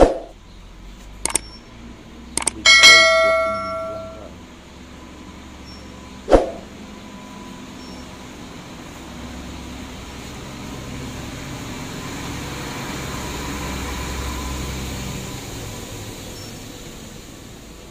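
A few sharp knocks, then about three seconds in a metal object clangs and rings on several pitches, fading over a second and a half. Another knock follows, then a low rumble swells and fades over several seconds.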